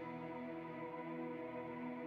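Soft ambient worship music: a single chord held steady with no new notes and no singing.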